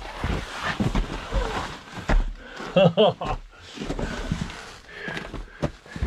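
Jackets and gloves scraping and rubbing on rock walls and boots scuffing as two people squeeze through a narrow rock crevice, with a short voice sound, like an exclamation, about three seconds in.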